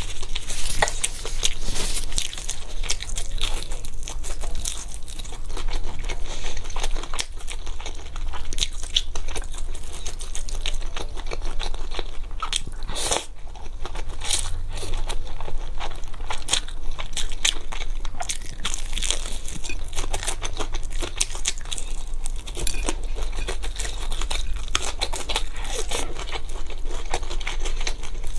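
Close-miked eating: steady crunching and chewing of fried street-food skewers and spicy fire noodles, with a stronger burst of mouth noise about halfway through as noodles are slurped.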